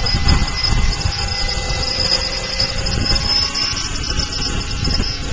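Electric 600-size RC helicopter hovering low. Its electric motor and drivetrain give a steady high whine made of several held tones, over the low rumble of the spinning rotor blades.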